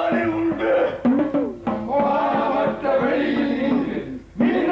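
Performers' voices chanting a long, sliding melodic line over a drum beat, breaking off briefly about four seconds in.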